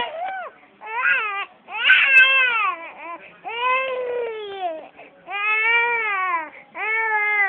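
Baby screaming and crying: about six loud wails in a row, each rising then falling in pitch, with short catches of breath between them.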